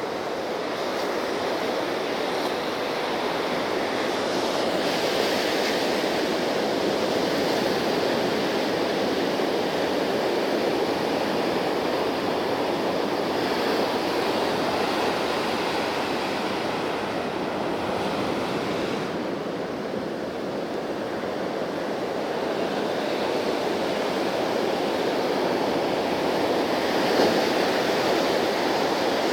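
Ocean surf breaking on the shore, a steady rushing wash that swells and eases slightly.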